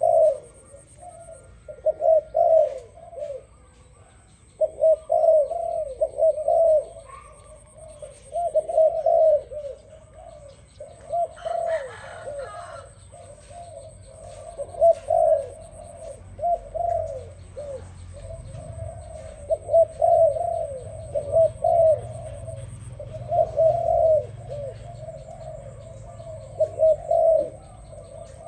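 Doves cooing in repeated phrases, one after another with short gaps. A faint steady high whine sounds underneath.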